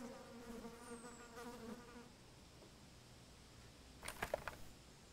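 A flying insect buzzing faintly with a wavering pitch for about two seconds. About four seconds in come a few short, faint clicks and rustles.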